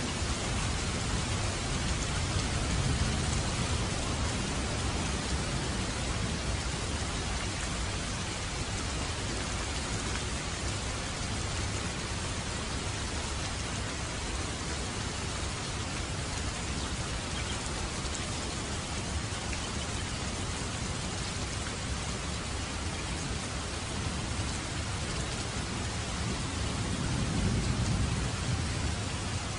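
Heavy rain falling steadily on pavement and foliage, with low rumbles of distant thunder swelling a few seconds in and again near the end.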